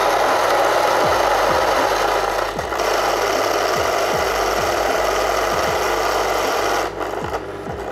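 Fellow Ode Brew Grinder's flat burrs grinding a 15 g dose of whole coffee beans: a loud, steady grinding noise. About seven seconds in, the grinding drops away as the beans run out, leaving the motor spinning on more quietly.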